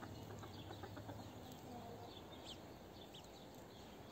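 Naked Neck chickens clucking faintly, with a few short high chirps.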